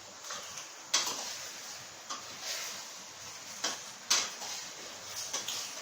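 A utensil knocking and scraping against a cooking pot as chicken bones are stirred, with several sharp knocks at irregular intervals.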